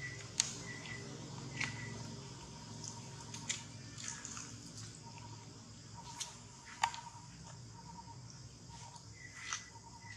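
Faint outdoor ambience: a steady low rumble under faint, repeated high chirping in short dashes, with scattered short sharp clicks and chirps, the loudest about half a second in and near the seventh second.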